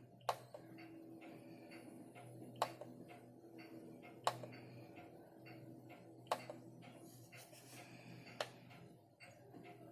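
Sharp single clicks from the controls of an RCA clock radio being pressed, five loud ones about two seconds apart with fainter ones between, over a faint steady low hum.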